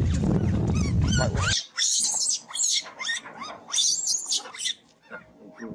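Monkeys screaming: a rapid run of short, high-pitched squeals that rise and fall in pitch. For the first second and a half they sound over a low rumbling noise that cuts off suddenly.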